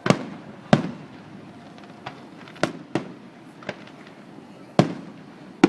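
Fireworks bursting overhead: a string of about eight sharp bangs at uneven intervals, some louder and some fainter, each trailing off in a short echo.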